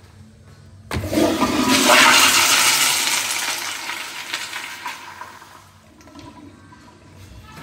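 Commercial flushometer toilet flushing: the flush starts with a sudden rush of water about a second in, is loudest at first, then fades over several seconds.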